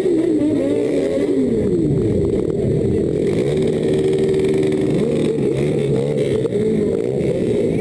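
Several motorcycle engines revving, their pitch rising and falling over one another, with a steadier engine note held for a second or two in the middle.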